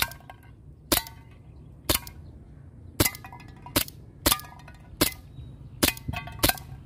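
Silver WE M92 gas blowback airsoft pistol firing about nine sharp shots, roughly one a second and coming faster near the end. Several shots are followed by a short metallic ring.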